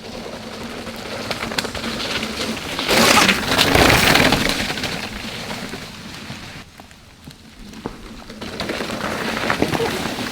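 Mountain bike riding noise on a damp dirt trail: tyres rolling over the ground with rattles and ticks. The noise swells loudest around three to four seconds in, drops away about seven seconds in, and builds again near the end.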